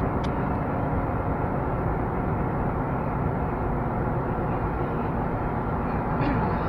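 Steady road and running noise inside the cabin of a Honda Fit Shuttle Hybrid on the move, slowing under regenerative braking.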